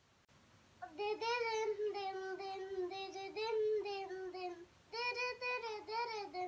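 Young child singing wordless, drawn-out notes that waver in pitch. The singing starts about a second in and breaks off briefly around the five-second mark.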